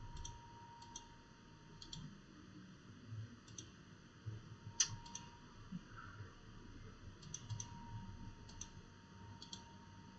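Computer mouse buttons clicking: about a dozen short, faint clicks, several in quick pairs, as right-click menus are opened and options picked.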